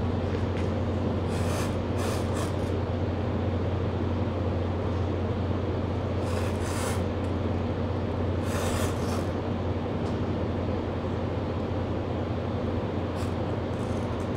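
Brazing torch flame heating the copper tubing of a window air conditioner: a steady hiss over a constant low hum, with short brighter hisses a few times.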